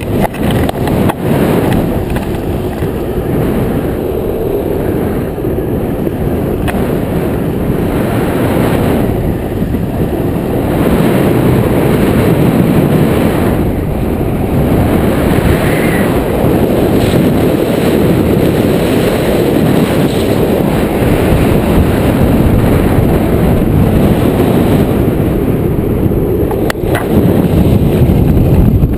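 Longboard wheels rolling fast over rough asphalt on a downhill run: a loud, steady, gritty rumble that grows a little louder about ten seconds in.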